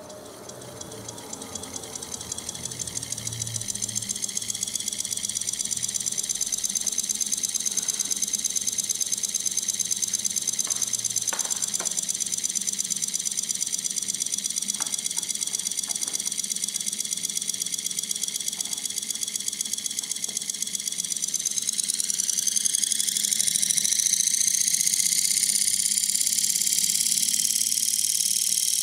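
Homemade pancake electric motor with a slotted copper disc armature running: a high, steady whine that grows louder over the first few seconds, then rises in pitch and gets louder again as the motor speeds up about three quarters of the way through. A few faint clicks come in the middle.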